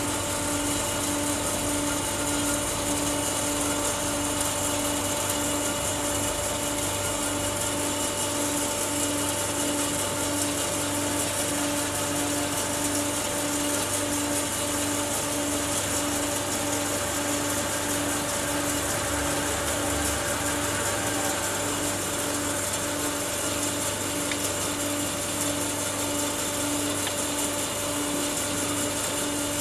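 Automatic CNC horizontal band saw running under power with its bow feeding down: a steady mechanical hum with a faint tone pulsing evenly about twice a second.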